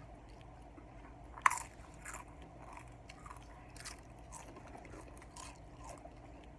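Someone bites sharply into crunchy chips about one and a half seconds in, then keeps chewing with irregular, softer crunches.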